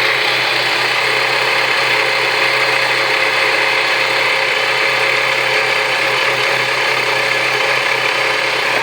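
Saturn Ion Red Line's supercharged 2.0-litre four-cylinder engine running, with a steady mechanical noise over a constant low hum: the weird noise the owner is trying to track down.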